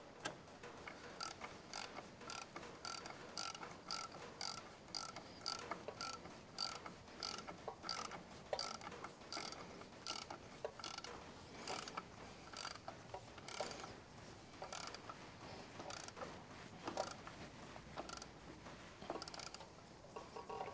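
Faint steady clicking of a small 9/16 ratchet, about two clicks a second, as the bolts and fittings on a tractor power steering pump are wound in.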